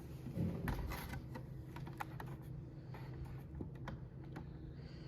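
Scattered light clicks and taps from hands handling something small, over a low steady hum.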